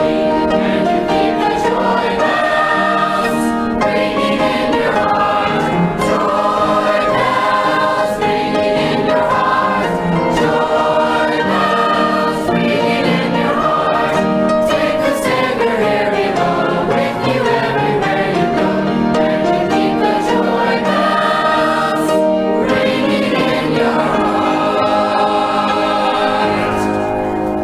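Youth choir singing a gospel song, many voices together in harmony.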